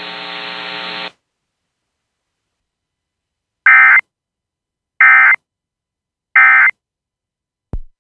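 A steady low buzz cuts off about a second in. Then come three short bursts of Emergency Alert System digital data, evenly spaced a little over a second apart: the end-of-message code that closes the severe thunderstorm warning. A brief low thump sounds just before the end.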